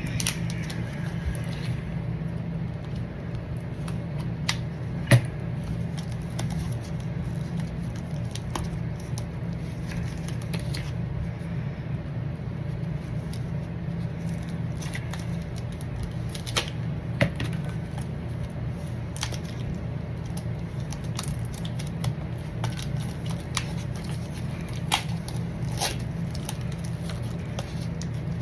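Trading cards and hard plastic card holders being handled: scattered light clicks, taps and rustles, one sharper click about five seconds in, over a steady low hum.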